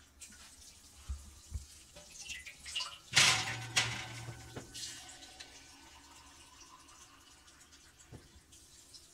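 Water poured into a metal sheet pan on an oven rack to fill a water bath, with a loud splash about three seconds in that fades over the next couple of seconds. A couple of soft knocks come before it.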